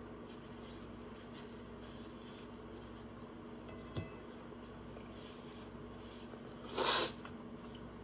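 Quiet room with a steady low hum, where a man is eating between bites: soft handling noises, a single sharp click about halfway, and a short rushing noise near the end that is the loudest sound.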